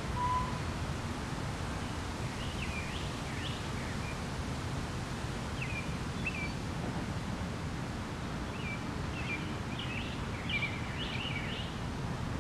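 Outdoor ambience: a steady low background noise with small songbirds chirping. A few short chirps come around two to three seconds in, a couple more around six seconds, and a busier run of chirps over the last four seconds.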